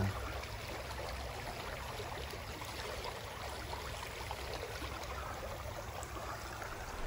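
Shallow limestone spring creek flowing steadily, an even rushing of water.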